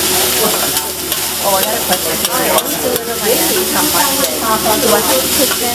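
Fried rice sizzling on a teppanyaki flat-top griddle while metal spatulas scrape and stir it, with a few sharp taps of spatula on steel.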